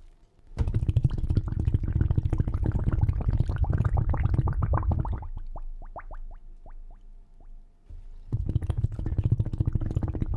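Underwater bubbling: a dense run of gurgling bubbles. About five seconds in it thins to a few separate bubbles, each rising in pitch, then it thickens into dense bubbling again near the end.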